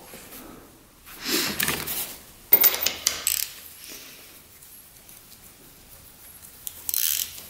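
Metal hand tools clinking and rattling in three short bursts, the loudest about two and a half seconds in, as a socket wrench is worked on the ATV engine's spark plug to take it out.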